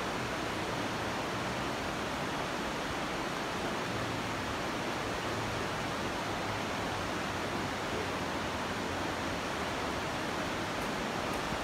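Fast mountain river rushing over rocky rapids: a steady, even rush of white water.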